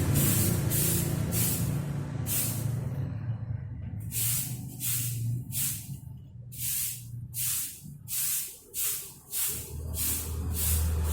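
Quick, regular swishing strokes of cleaning on a wet floor, each a short hiss, about one and a half a second, with a steady low hum underneath.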